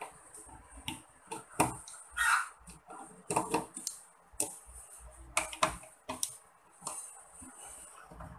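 Irregular light clicks and knocks, a dozen or so short sharp sounds spread unevenly, as of handling parts and tools during a bench repair.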